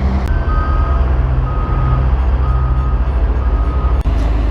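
Four half-second electronic beeps about a second apart over a steady low engine rumble.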